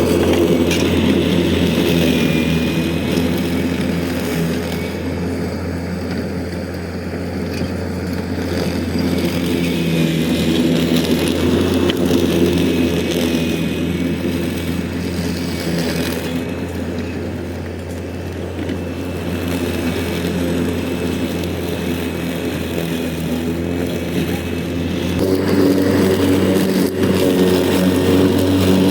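Engine of a Grator Lowrider slope mower running steadily, growing louder and softer by turns. Its note shifts about 25 seconds in.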